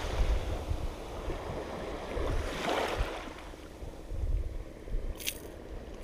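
Small waves washing onto the beach, with wind rumbling on the microphone; the wash swells briefly about halfway through. Near the end there is one short metallic click from the pliers at the lure.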